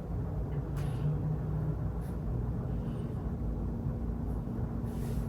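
Steady low background rumble with a few faint clicks; a low steady hum comes in about three seconds in.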